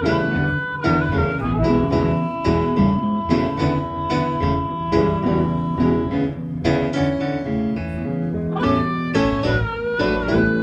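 Live band playing a slow blues in E. A lead line holds long sustained notes, bending near the start and the end, over a steady beat and backing chords.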